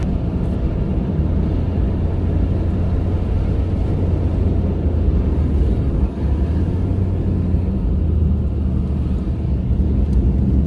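Car driving at speed: a steady low road and engine rumble.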